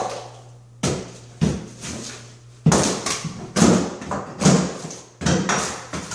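Hammer knocking on a fiberglass bathtub surround panel to break it loose: a series of sharp, irregular knocks, each with a short ringing tail.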